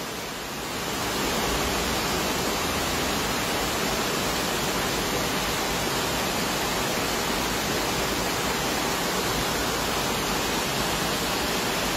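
Torrential rain and rushing floodwater making a steady, even wash of noise, louder from about a second in.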